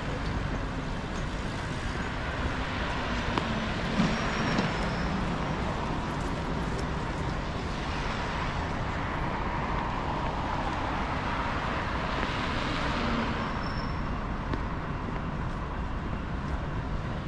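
City street traffic: a steady rumble with several vehicles passing one after another, each swelling and fading, and a brief knock about four seconds in.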